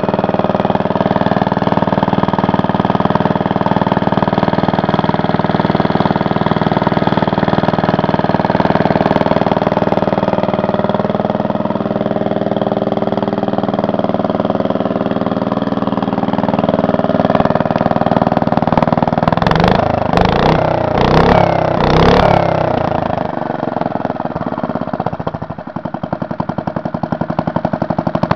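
1945 Briggs & Stratton Model N single-cylinder engine running steadily, with a few loud surges about two-thirds of the way through and a brief dip near the end.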